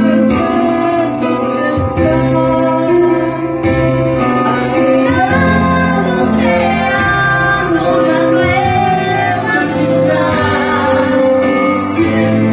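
A woman singing a slow love ballad in Spanish over instrumental accompaniment.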